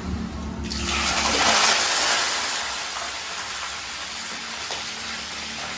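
Raw chicken pieces sizzling as they drop into hot oil in a wok: a hiss that starts suddenly about half a second in, swells, then settles into a steady sizzle.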